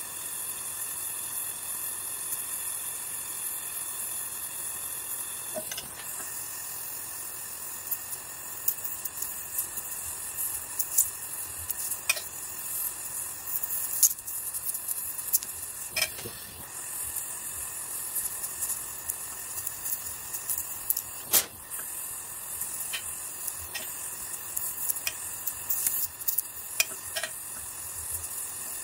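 LPG gas torch flame hissing steadily on an aluminum casting, with irregular sharp crackles and pops from about six seconds in as aluminum filler rod is melted into the weld.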